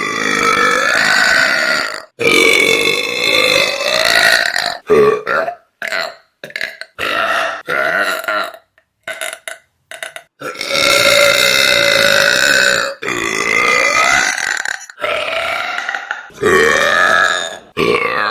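A woman burping loudly, a string of separate drawn-out belches, several lasting two seconds or more, one after another with sudden breaks between them.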